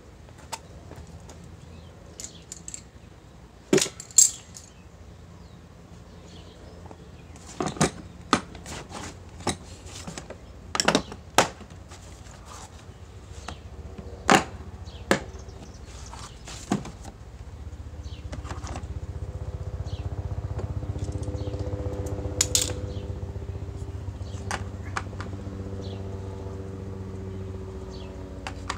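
Metal hand tools clinking as they are set and dropped into a plastic tool case, a dozen or so sharp clinks. From about halfway a steady engine hum grows louder and then fades.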